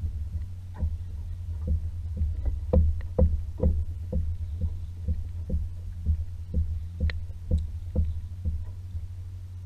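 Water slapping against a paddleboard's hull in short hollow knocks, about two a second, loudest around three seconds in, over a steady low hum.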